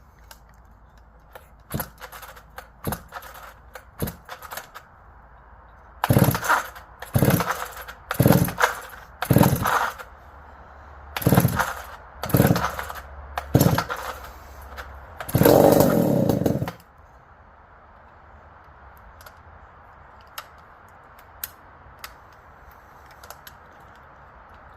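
Jonsered 90 two-stroke chainsaw being pull-started cold: seven quick rips of the starter cord about a second apart, the engine turning over against compression, then on the next pull it catches for about a second and a half and dies.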